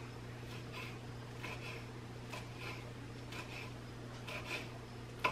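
Kitchen knife slicing fresh basil leaves on a wooden cutting board: soft, irregular cuts about two a second, over a steady low hum.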